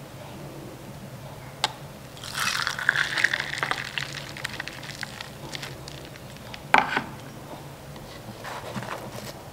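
Iced coffee poured from a jug into a glass of ice cubes, the liquid running with small crackles for about two seconds. A sharp click comes just before the pour and a louder knock a few seconds after it.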